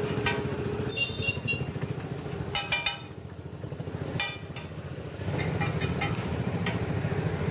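Metal spatula scraping and clinking on a large flat iron griddle as noodles and vegetables are stir-fried, the strikes ringing briefly and coming every second or so, several in quick succession near the end. Under it runs a steady low, engine-like rumble.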